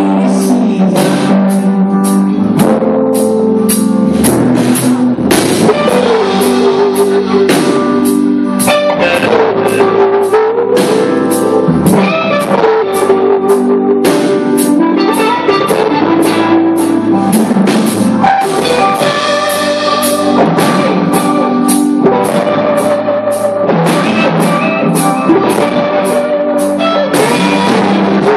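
Live rock band playing an instrumental passage: an electric guitar lead line over a steady drum-kit beat, loud throughout.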